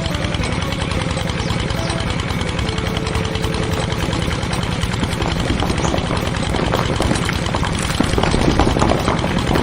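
A small engine running steadily with a fast, even chugging pulse, turning a little louder and more clattery near the end.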